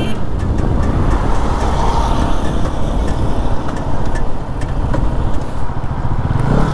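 Wind rushing over a helmet camera's microphone, mixed with engine and road noise from a Bajaj Pulsar NS200 motorcycle being ridden at speed.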